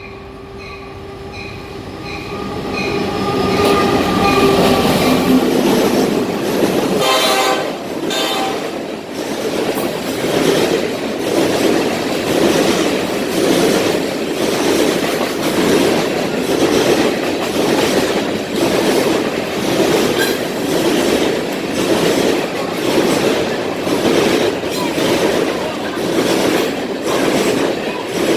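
CSX freight train approaching and passing: its locomotive horn sounds for the first few seconds as the train grows louder. The cars then roll by with a steady, rhythmic clatter of wheels on the rails.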